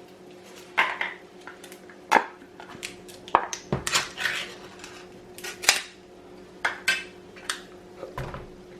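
A utensil clinking and scraping against a mixing bowl in a dozen or so separate knocks while crab meat is put into the bowl, over a faint steady hum.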